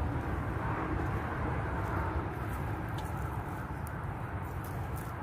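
Steady low rumbling outdoor background noise, with a few faint ticks.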